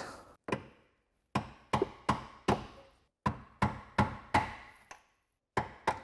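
Hammer striking a metal drift about a dozen times, sharp single blows in quick groups with short pauses, driving a worn door-hinge bushing out of the hinge bracket on a 1999 Chevy S10 door.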